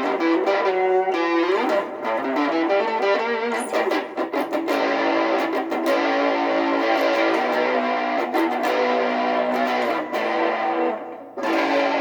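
Guitar played through a Strum Buddy portable guitar amp speaker with its built-in effects switched on: sustained chords and notes ringing out, with a few sharp strums and a brief drop in level near the end.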